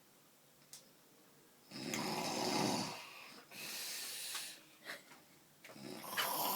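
A man snoring loudly: a long, low snore on the in-breath about two seconds in, a breathy out-breath after it, and the next snore building near the end.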